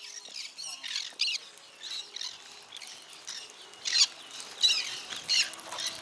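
A flock of green-cheeked conures giving short, harsh, high-pitched calls, many overlapping, with a few louder calls from about four seconds in.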